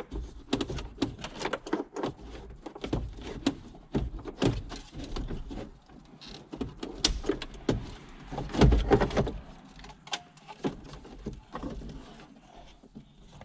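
Hands working behind a Jeep dashboard: a string of plastic clicks, knocks and rattles as trim pieces and wiring connectors are handled, with a louder clatter of knocks about two-thirds of the way through.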